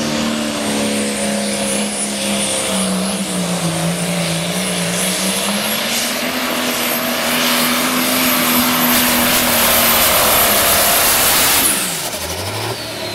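Case IH Light Pro pulling tractor's turbocharged diesel engine at full throttle, dragging the weight-transfer sled, with a high whine above the engine note. Its pitch sags a few seconds in as the load builds, then climbs back, and the engine note drops away abruptly near the end as the throttle is shut off at the end of the pull.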